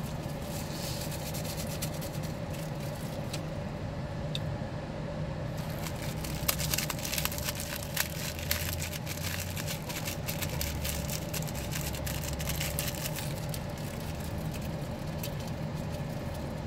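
Saltine cracker packets being crushed and torn open by hand: a dense run of plastic crinkling and crackling from about five seconds in until about thirteen seconds, with a few sharper cracks. Underneath is the steady hum of an idling car.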